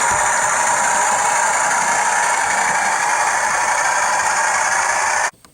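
Class 40 diesel engine sound from a TTS sound decoder, played through a model locomotive's small 8-ohm speaker: a steady, thin, rattly running sound with little bass. It cuts off abruptly near the end.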